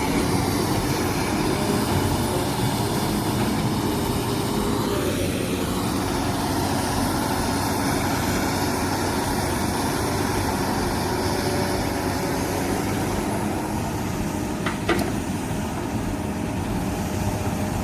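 Heavy diesel machinery, an excavator and a dump truck, running steadily. A single sharp knock comes near the end.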